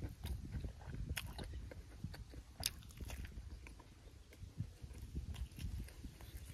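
A man chewing a large mouthful of boiled beef tripe dipped in chili sauce, with wet mouth sounds and a few sharp clicks about a second in and near the middle.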